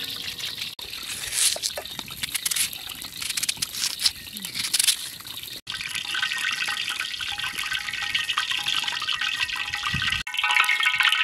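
A knife slicing through a peeled onion held in the hand: a quick run of crisp, crunchy cuts. About halfway the sound breaks off into a steady hiss with faint chiming music, which grows louder near the end.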